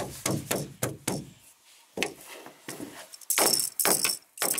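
A baby slapping its hands on the floor of a canoe, a quick run of knocks and slaps, then a toy rattle jingling in short shakes near the end.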